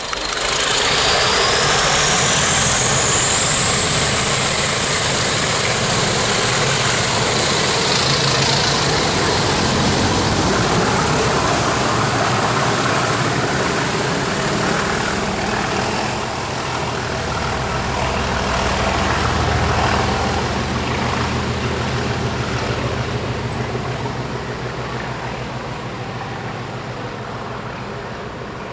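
English Electric Class 20 and Class 37 diesel locomotives working in multiple, passing at full power with a deep, steady engine note. A high whistle climbs in pitch over the first few seconds. The sound swells again about twenty seconds in, then fades away.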